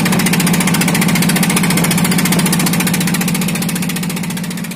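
A small wooden fishing boat's engine runs steadily under way, with a rapid, even knocking beat and a rushing hiss over it. The sound fades out toward the end.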